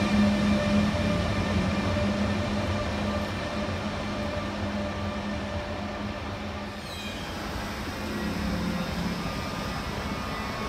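ÖBB Taurus electric locomotive hauling double-deck coaches away through an underground station: a steady electric running hum with a low tone and fainter higher tones, slowly fading as the train recedes. At about seven seconds the sound switches to another train's steady running noise.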